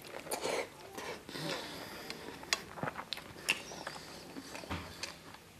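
Close-miked chewing and mouth sounds of a person eating rice with chickpea and paneer curry by hand: soft wet smacks with scattered sharp clicks.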